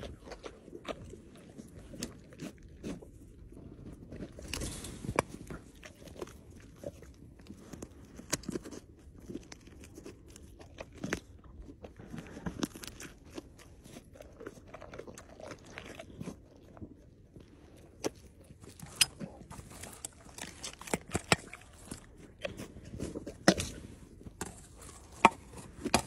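A tiger biting and chewing raw meat, with wet crunching and many short sharp clicks, the loudest of them in the last third.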